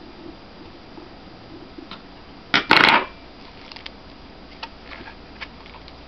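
Small clicks and taps from a screwdriver and a laptop hard drive caddy being handled on a tabletop, with one loud, sharp clatter about two and a half seconds in.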